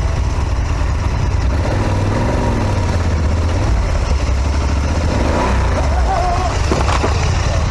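Adventure motorcycle engine running, with a deep steady rumble and noise over it.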